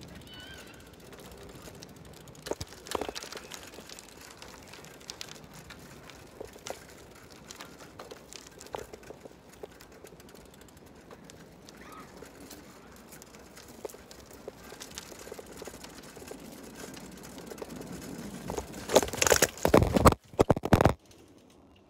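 Quiet outdoor walking ambience with scattered faint clicks, then loud crackling and rustling noise on the phone's microphone for about two seconds near the end, as the phone is handled and turned toward the river, before it cuts off abruptly.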